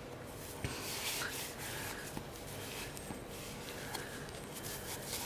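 Faint rubbing with a few small soft clicks: a cloth wiping dried grout residue out of a flexible rubber grout-mixing bowl.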